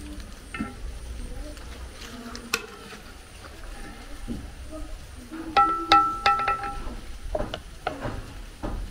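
Serving utensils and hands clicking, knocking and scraping against a metal cooking pot and a ceramic dish as stew is dished out, with a cluster of sharp clinks and a brief ringing about six seconds in.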